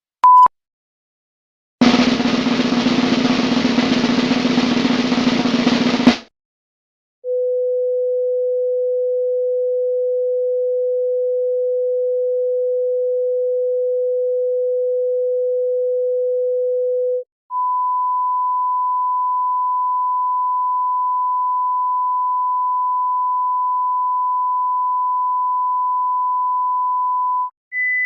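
Electronic test-tone sound effects: a short beep, then a dense rattling noise for about four seconds, then a steady pure sine tone held for about ten seconds, followed by another steady sine tone an octave higher for about ten seconds. A third, higher tone starts right at the end.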